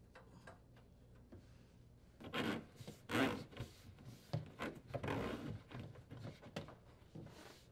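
Corrugated plastic drain hose rubbing and scraping through the hole in a particleboard cabinet wall as it is pulled through in several uneven strokes, starting about two seconds in.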